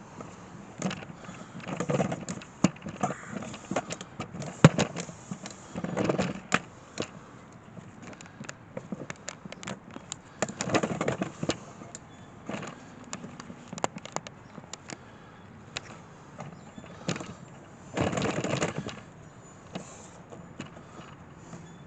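Handling noise: scattered clicks and knocks with several short scraping, rustling bursts, the loudest near the end.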